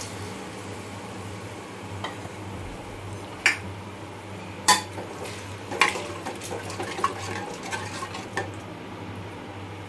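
Spoon stirring rajma curry in a pressure cooker, knocking sharply against the cooker about five times, over a steady low hum.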